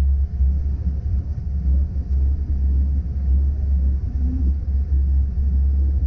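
Steady low rumble of a Bobcat S595 skid-steer's diesel engine and drive, heard from inside the cab while it pushes snow with a plow blade.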